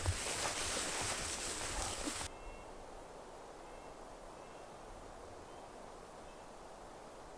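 Rushing noise with low thumps that cuts off abruptly about two seconds in, leaving quiet outdoor ambience with a few faint, short bird chirps.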